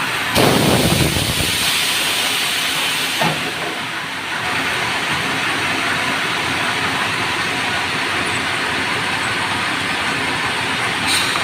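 Semi-automatic sawmill saw cutting merbau timber: a loud, steady noise of the blade in the wood, with a louder surge about half a second in.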